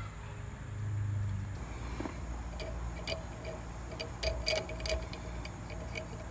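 Socket ratchet clicking in short, irregular runs as it loosens a bolt on the electric motor of an air compressor.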